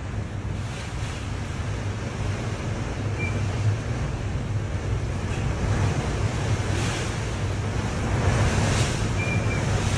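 Storm-force wind gusting hard and buffeting the phone's microphone, a heavy rumbling noise that swells and grows louder in the second half. A few brief faint high whistles come through the gusts.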